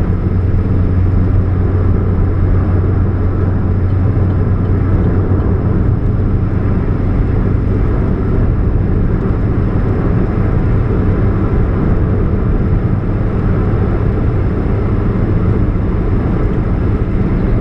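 2013 Chevrolet Spark running, with a steady low hum over the engine and road noise, strongest in the first several seconds; the humming is put down to a leak at the catalytic converter.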